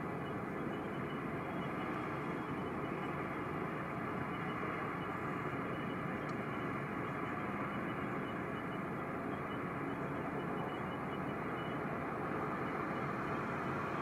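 Heavy snow-clearing machinery running steadily: an even engine rumble with a faint constant hum and no breaks.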